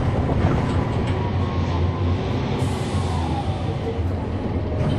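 Cabin sound aboard a 2011 NABI 416.15 (40-SFW) transit bus: its Cummins ISL9 inline-six diesel engine running with a steady low drone.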